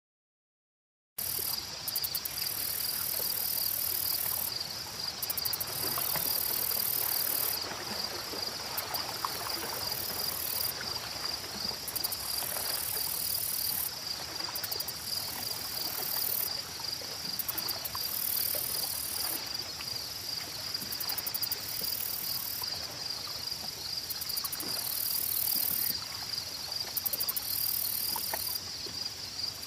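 Chorus of forest insects that starts about a second in after a brief silence: a steady pulsing trill with higher buzzing bursts coming and going every couple of seconds, over faint scattered ticks.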